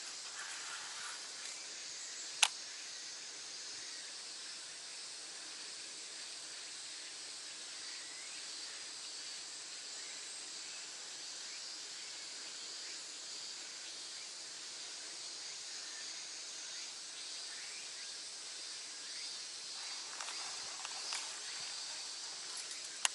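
Steady high-pitched chorus of summer insects, with one sharp click about two and a half seconds in.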